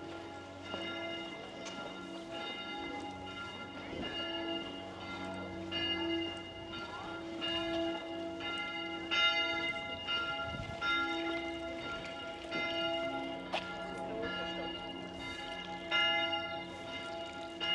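Church bells pealing: several bells struck in turn, about one strike a second, their tones ringing on and overlapping.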